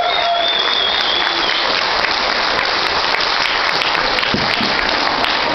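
Wedding guests applauding after the kiss, with a high held cheer over the first second and a half.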